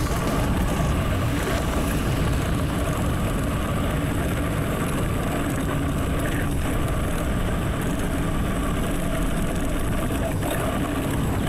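Steady wind rumble on the camera microphone while riding a bicycle, with a faint, even hum underneath and no breaks.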